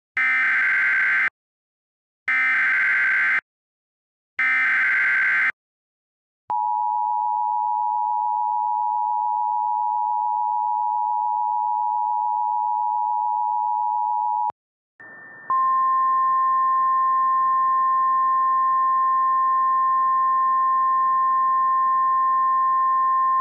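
Emergency Alert System alert opening: three short bursts of SAME header data tones about a second apart, then the two-tone EAS attention signal held steady for about eight seconds. After a brief gap a single steady tone sets in over a radio hiss, like the NOAA Weather Radio warning alarm tone being relayed.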